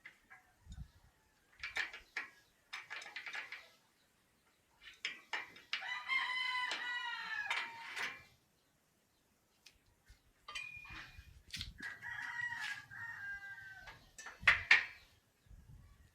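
A rooster crowing: one long call of about two seconds around six seconds in, and shorter calls later, with a few scattered knocks in between.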